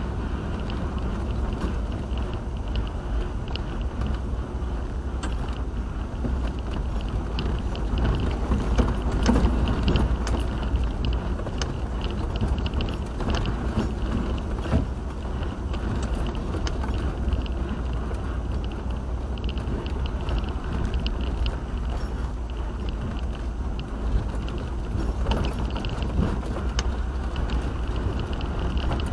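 Car on the move, heard from the dashcam: a steady low road and engine rumble with occasional light clicks and rattles.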